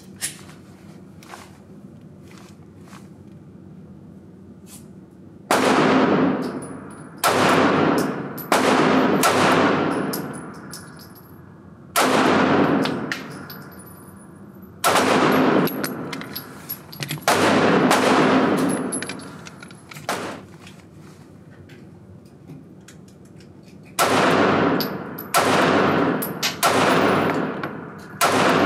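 Springfield Armory Hellcat 9mm micro pistol firing about a dozen shots, unevenly spaced, each with a long echo off the walls of an indoor range. The first shot comes about five seconds in.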